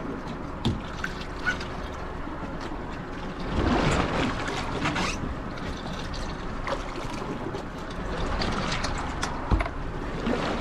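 Sea water splashing and sloshing against the side of an offshore fishing boat as a big amberjack is handled alongside, with a louder stretch of splashing about four seconds in. A few sharp knocks come through as well.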